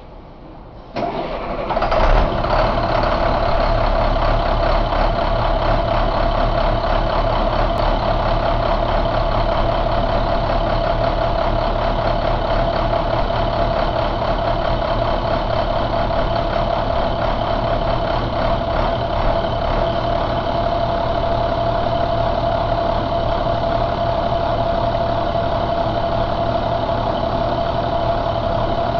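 2007 International DT466E inline-six turbo diesel engine starting: the starter cranks about a second in, the engine catches about a second later, then settles into a steady idle with a constant whine running over it.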